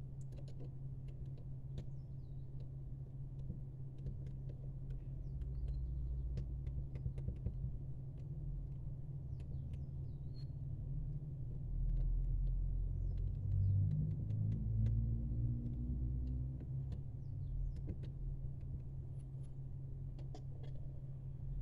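Faint scattered clicks and taps of a metal sculpting tool and fingertips working moulding putty in a plastic frame, over a steady low rumble that swells for a few seconds around the middle.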